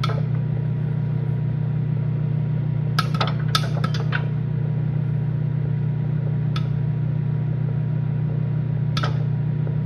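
Microwave oven running with a steady hum while the last popcorn kernels pop loose in a bowl inside it: a quick cluster of about six pops some three seconds in, then two single pops later on. The popping is tapering off because the batch is almost completely popped.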